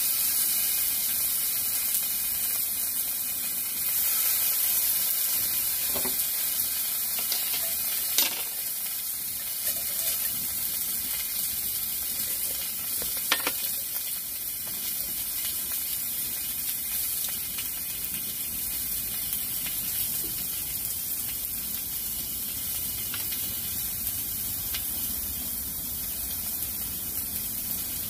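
Beef sizzling on a mini griddle set on a wood stove: a steady frying hiss with a few sharp pops.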